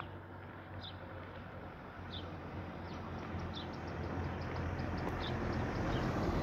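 A van approaching along the road, its engine and tyre noise growing steadily louder as it nears. A bird chirps with short high notes about once a second over it.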